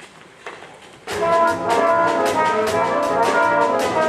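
Brass-heavy pit orchestra music, sustained chords over a quick steady beat, coming in loudly about a second in after a quieter moment.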